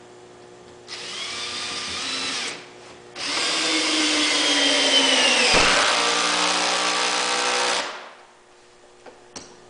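Milwaukee 18-volt cordless drill on its highest impact setting driving a lag bolt into two 2x4s. A short run of about a second and a half, a brief pause, then a longer run of about four and a half seconds whose motor whine drops in pitch as the bolt seats, and then it stops.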